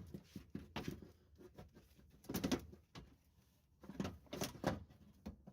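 A truck's metal window regulator being unhooked and lowered inside a steel door shell: several short bursts of knocking and rattling.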